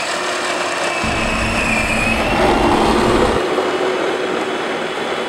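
Power Wheels battery-powered ride-on toy cars driving on asphalt: a steady grinding rush from hard plastic wheels on the pavement with a faint electric gear-motor whine. A low rumble joins in for a couple of seconds in the middle.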